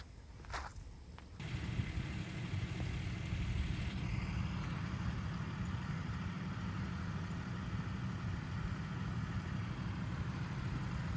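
Vehicle engine idling: a steady low rumble that starts about a second and a half in, after a quieter moment with one brief click.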